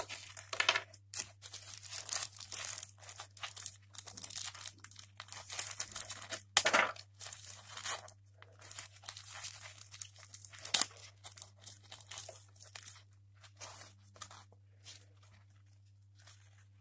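Thin packaging wrap crinkling and rustling in gloved hands, in a run of short irregular crackles with a few louder ones, thinning out toward the end. A steady low hum runs underneath.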